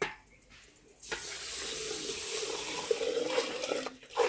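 Water poured from a small aluminium pot into a large aluminium pot of raw rice: a steady splashing pour that starts about a second in and runs for nearly three seconds, with a short knock near the end.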